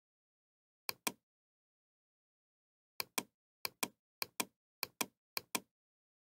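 Computer mouse clicking: six quick double clicks, one about a second in and then five in a row about every half-second, as faces are selected in CAD software.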